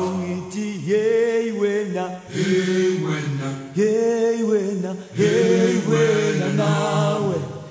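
Music: a choir sings long held notes in Zulu, in phrases of a second or two with short breaks between them.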